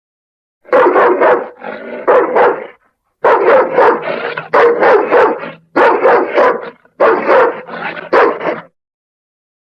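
St. Bernard dog barking in quick runs of barks, starting about a second in and stopping shortly before the end.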